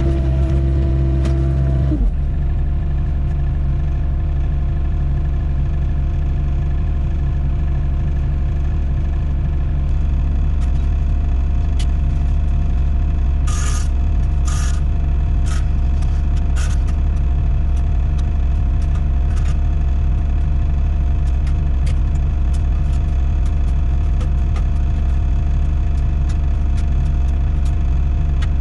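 Doosan 55W wheeled excavator's diesel engine running steadily under load while digging, with a higher steady whine over it for the first two seconds that then stops. A few sharp knocks or clicks come about halfway through.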